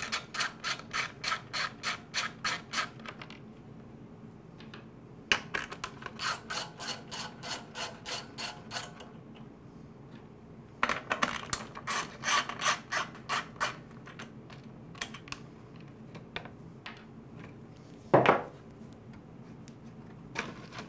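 Hand socket ratchet clicking in three runs of about four or five clicks a second as it backs out the bolts holding a push mower's recoil starter housing. A single louder knock comes near the end.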